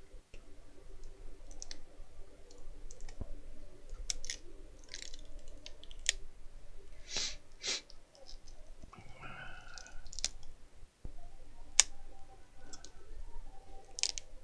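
Scattered small clicks and scratchy rubs of fingers and a small metal tool working the laptop LCD panel's screen cable connector loose, with one short squeaky rub partway through.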